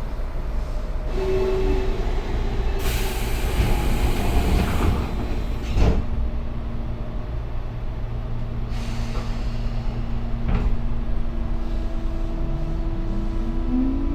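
Running sound of a Tobu 9000 series electric train, set 9105F, heard on board: a steady low rumble with steady tones, two stretches of hiss and a sharp knock about six seconds in. Near the end a motor tone starts rising in pitch as the train picks up speed. The uploader flags this set's running sound as an abnormal noise.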